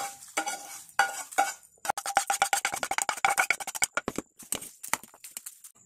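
Metal spatula clinking and scraping against a mixing bowl and pan while stirring the tempering into the sundal. A few taps, then a fast run of clicks from about two seconds in, then scattered taps near the end.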